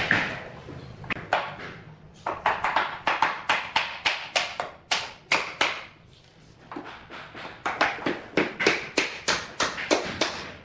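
Claw hammer tapping on a bamboo skirting board, a quick string of sharp wooden knocks, about three or four a second, in two runs with a short pause in the middle.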